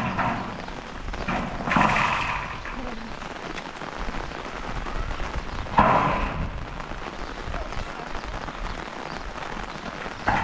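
Steady rain falling, with short louder bursts about two seconds and six seconds in.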